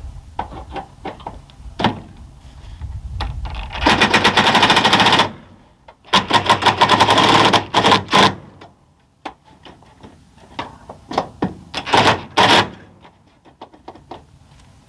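DeWalt 20-volt XR cordless impact driver hammering screws through a K-style gutter into the fascia. Two long runs of rapid impacts about four and six seconds in, then shorter bursts around eight and twelve seconds, with light knocks between.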